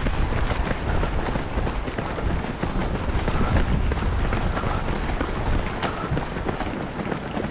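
Wind buffeting the microphone of a camera carried by a running runner: a steady low rumble with a hiss above it.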